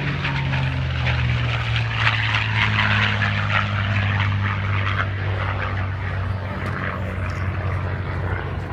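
P-51 Mustang fighters' Packard-built Merlin V-12 engines and propellers passing in flight: a loud, steady, deep drone with a rushing edge that swells about two seconds in and eases off slightly toward the end.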